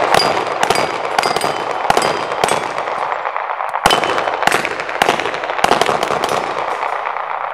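Handguns fired rapidly by two competitors at steel plates: about ten shots, roughly two a second with a short pause around three seconds in, with the ring of bullets hitting the steel plates over a steady echoing din.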